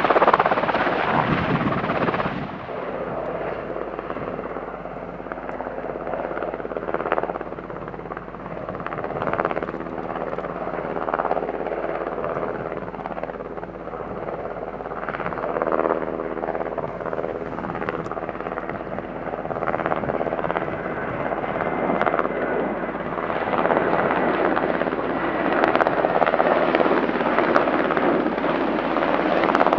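Helicopter rotor and engine noise for the first couple of seconds. It is followed by a Boeing P-8A Poseidon's two CFM56 turbofan engines running as the jet flies over: a steady noise with a drone of several low tones and a faint high whine, getting louder over the last few seconds.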